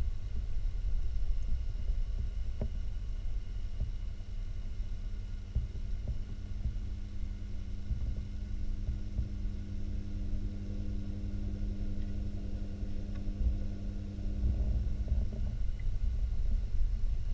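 Muffled underwater rumble with a steady low hum, as heard by a GoPro submerged in a large aquarium; the hum is strongest in the middle.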